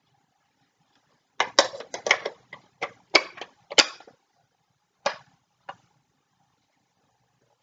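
Hard plastic model-kit parts clicking and clacking against each other as they are handled and fitted together: a quick run of sharp clicks for a few seconds, then two more single clicks.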